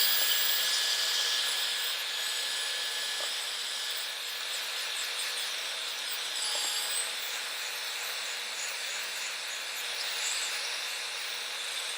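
Handheld heat gun blowing steadily: a motor-driven rush of hot air, slightly louder in the first second, while it heats the top of a cracked phone screen to soften the adhesive under the glass.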